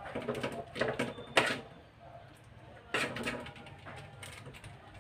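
A spoon scraping and knocking in a pan as thick cheese sauce is stirred, then a short run of mechanical clicking about three seconds in as black pepper is ground over the sauce.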